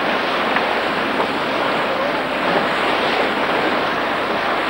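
Steady rush of wind and sea on a sailing yacht's deck, with wind buffeting the microphone.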